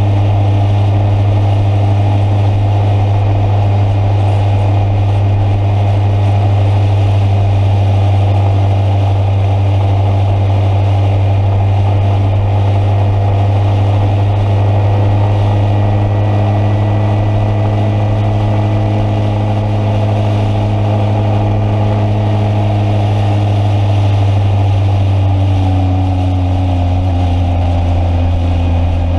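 Motorcycle engine running at a steady speed with a constant, even drone. Near the end its pitch drops slightly as the engine slows.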